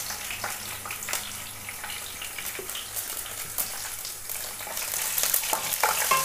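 Garlic cloves frying with mustard seeds and spices in hot coconut oil in a nonstick kadai: a steady sizzle with scattered sharp crackles and pops. Near the end a spatula stirs the pan and the sizzle grows louder.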